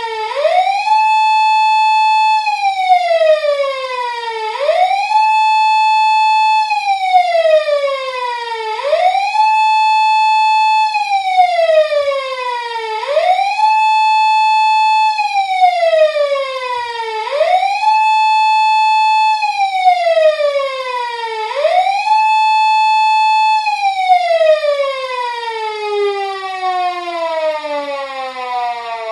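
Japanese police car siren wailing. The tone rises quickly, holds high for about two seconds, then falls slowly, and the cycle repeats about every four seconds, six times. Near the end it falls away slowly without rising again, as the siren winds down.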